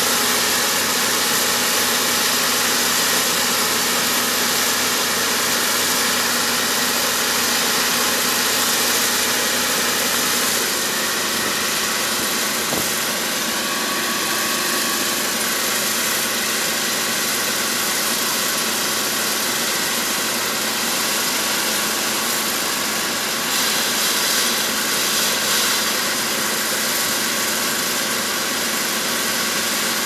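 Engine and threshing machinery of a four-row ER470 combine harvester running steadily at a distance, with a slight change in tone about ten seconds in.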